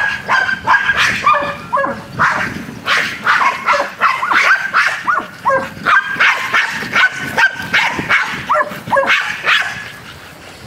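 Dogs barking rapidly and without let-up, about two to three barks a second, tailing off near the end. This is guard-dog protection barking aimed at a decoy.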